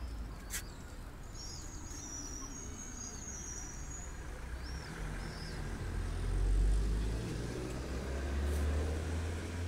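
Low rumble of passing street traffic that swells about halfway through and again near the end. Small birds chirp high and briefly through the first half, with a single sharp click near the start.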